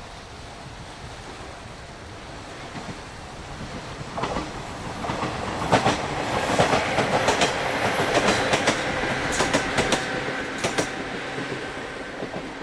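JR 103 series electric train passing close by: its running noise swells from about four seconds in, then a fast clickety-clack of wheels over rail joints, loudest mid-way, easing off near the end.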